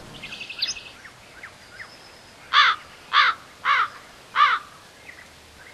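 A bird calling four times in a row, evenly spaced less than a second apart, with fainter small-bird chirps before it.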